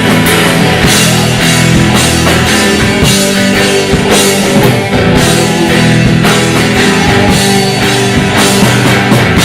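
Rock band playing an instrumental stretch of a hard-rock song between vocal lines: electric guitar, bass and drum kit with steady drum hits.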